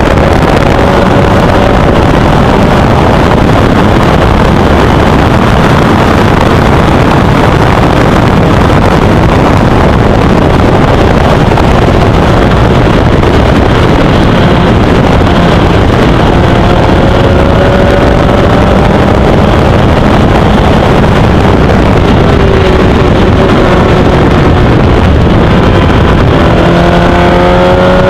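Formel Easter single-seater race car at racing speed, heard from the cockpit: a loud, dense engine and rushing noise. The engine note climbs under acceleration a few times, most clearly near the end.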